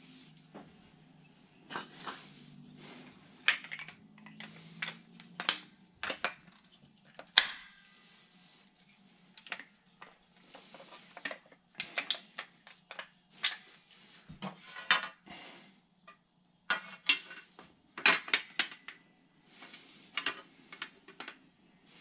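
Irregular sharp metal clinks and knocks from a lever-type tube bender and copper refrigerant tubing being handled and bent.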